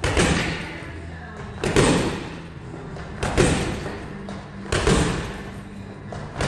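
Gloved punches landing on a heavy punch bag in quick bursts, a burst about every second and a half, over background music.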